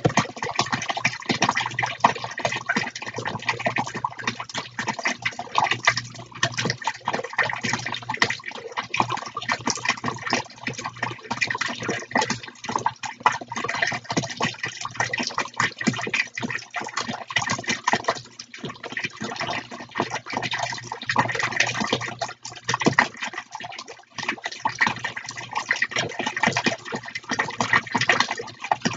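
Two small tabletop fountains splashing: water jets falling back into plastic tubs of water in a continuous, irregular patter. A low steady hum sits beneath.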